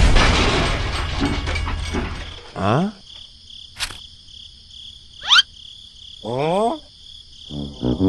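A toy steam train derailing, heard as a loud clattering crash for the first two seconds or so. Then come quick rising whistle-like sound effects, a sharp click and a fast upward whistle, over a faint steady high tone.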